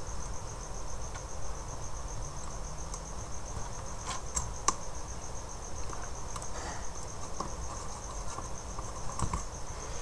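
A steady, fast, high-pitched chirping trill runs throughout. Under it are a few light clicks about four to five seconds in and again near the end, from soldering-iron and tool work on an induction cooker's circuit board while a capacitor is desoldered.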